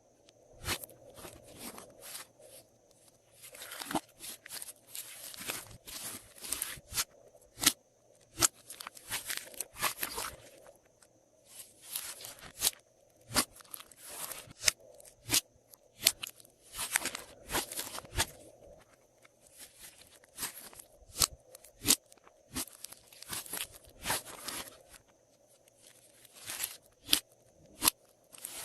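Glossy slime being squished and stretched by hand, giving irregular crackling pops and sharp clicks, some in quick runs of about a second.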